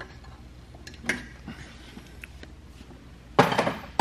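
A few light knocks and clicks as a piston and connecting rod are driven out of an engine block with a wooden hammer handle. Near the end comes a louder, short scraping rustle as the piston assembly comes free.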